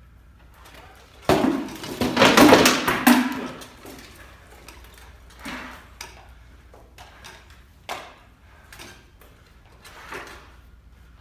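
A rapid flurry of sword blows striking shields and armour for about two seconds, followed by a few single lighter knocks.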